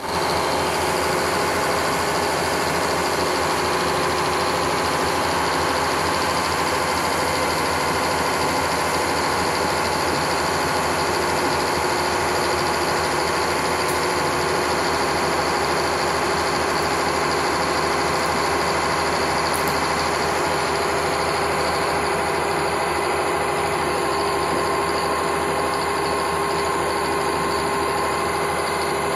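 Motor of a sawmill log deck and turner running steadily at a constant speed, an even drone that does not change in pitch or loudness.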